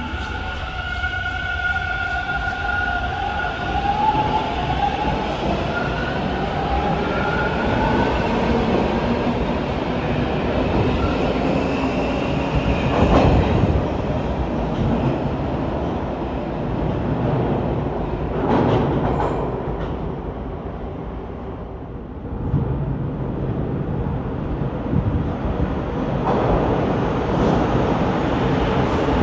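Toronto subway Bombardier T1 train running through the station: a whine that rises in pitch over the first several seconds, then the steady rumble of wheels on rail with a few louder clunks, dipping briefly and swelling again near the end.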